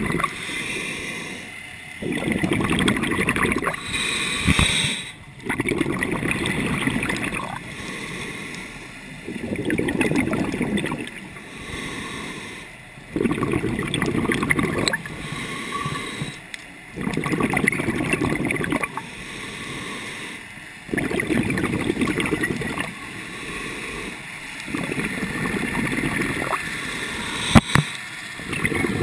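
Scuba diver breathing through a regulator, heard underwater: a hiss on each inhale, then a burst of bubbles on each exhale, about one breath every four seconds. A sharp click sounds near the end.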